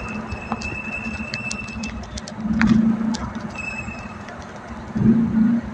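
Slow, crowded city traffic heard from a moving vehicle: engines hum steadily, with a thin high whine that stops about two seconds in and comes back briefly. Two louder surges, about two and a half and five seconds in, come from nearby engines.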